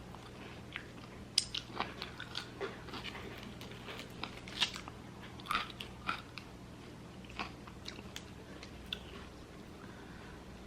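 A person biting and chewing food close to the microphone: irregular crunches and clicks, most frequent in the middle and thinning out near the end.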